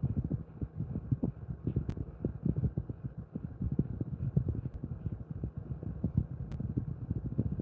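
Jindo-mix dog panting with its mouth open, a quick, uneven run of soft low puffs several times a second.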